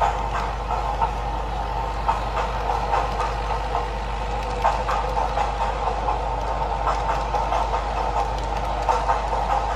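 An N-gauge model train of a 485 series express running past: a steady whine from its small motor, with irregular clicks of the wheels over the track joints and a steady low hum underneath.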